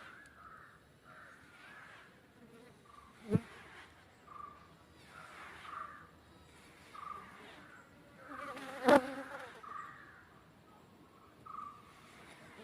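Honey bees buzzing in short, repeated buzzes, with one louder buzz passing close about two-thirds of the way through. A single sharp knock sounds a few seconds in.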